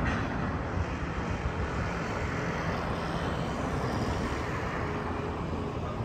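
Steady low engine rumble over continuous city background noise, with no sudden sounds.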